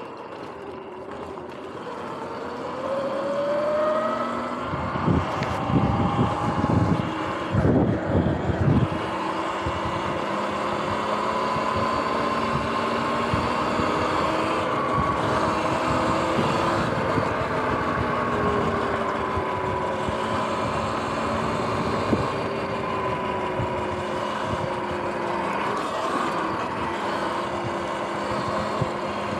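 Sur-Ron electric dirt bike riding, its electric motor whining in tones that rise and fall with speed, over steady tyre and wind noise. About five seconds in comes a few seconds of loud low rumbling.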